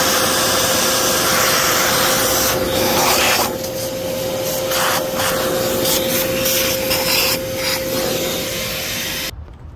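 A motorized tool running with a steady whine and hiss. Its sound roughens and dips as it works against a surface, and it cuts off suddenly near the end.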